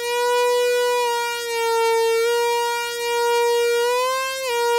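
A Eurorack synthesizer holding one sustained note with many overtones, its pitch nudged slightly up and down by thumb pressure on the AXE ribbon controller's pitch-bend pressure points. The bends are small, a half step or less, with a short rise about four seconds in that drops back just after.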